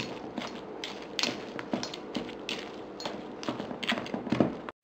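Utensil stirring a thick ground-pork stuffing mixture in a large bowl: irregular scrapes and clicks against the bowl. The sound cuts off abruptly near the end.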